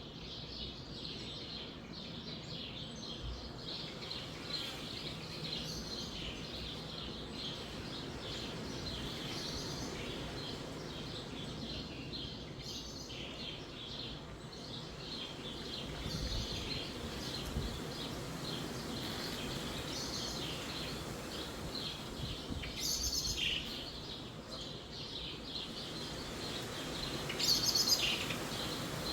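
Many small birds chirping continuously over a steady low rush of wind in trees, with a few louder calls near the end.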